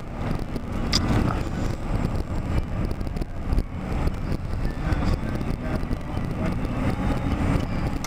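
Inside a moving car's cabin: a steady low rumble of engine and road noise while driving. A single sharp click sounds about a second in.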